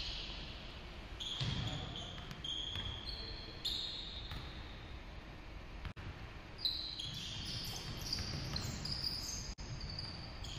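Pickup basketball on a hardwood gym floor: sneakers squeak in short, high-pitched chirps over the thud of the ball bouncing and players' footsteps. The sound cuts out for an instant twice.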